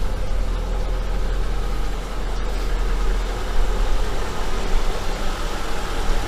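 ZAZ Sens car engine idling steadily while warming up just after an overhaul that renewed the connecting-rod small-end bushings; it runs quietly with no knock.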